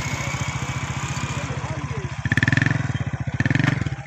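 A small engine running steadily close by, its even firing pulses heard throughout, with two short louder bursts over it in the second half.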